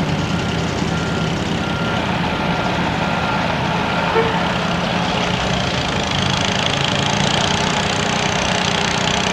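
Steady rumble of truck and car engines as traffic moves slowly through an intersection. A faint high reversing beeper repeats during the first half.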